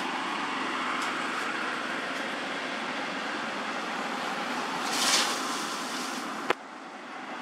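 Steady outdoor background noise, like a distant traffic hum, with a brief louder hiss about five seconds in and a sharp click a little later, after which the noise drops for a moment.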